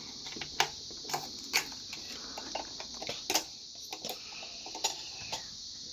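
Light, irregular clicks and taps of a sewing machine's needle clamp and a small needle being handled as a new needle is fitted, over a steady hiss.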